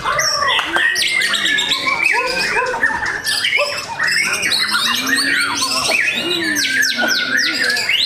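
White-rumped shama (murai batu) singing a continuous, varied song of whistled phrases mixed with rapid harsh chattering notes.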